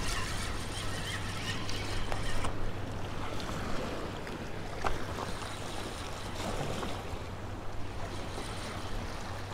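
Small waves washing and splashing against the rocks of a jetty, with a spinning reel being cranked as a hooked fish is reeled in.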